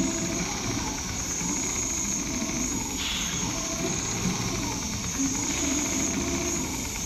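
Richpeace large-format CNC automatic sewing machine stitching a pattern into heavy leather: a continuous fast needle rattle under a steady high-pitched hiss.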